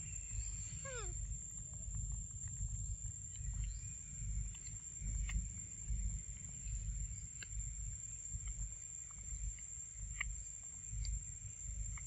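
Outdoor ambience: a fluctuating low rumble, with scattered faint short clicks and one quick falling chirp about a second in.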